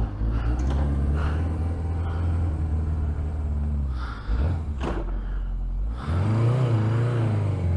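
Suzuki GSX 750 inline-four motorcycle engine running, picked up by a lavalier mic inside the rider's helmet. It comes up sharply at the start and holds a steady low note, dips briefly about four seconds in, then gets louder from about six seconds with its pitch wavering up and down.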